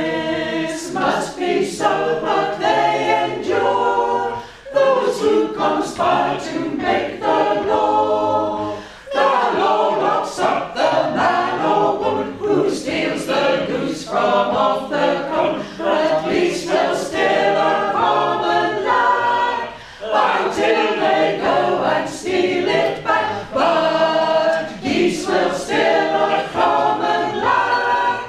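A small group of singers singing together unaccompanied, in sung phrases with brief pauses for breath between them.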